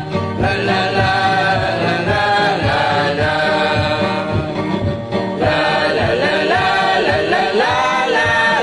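Music with a group of voices singing together, their held notes bending and wavering.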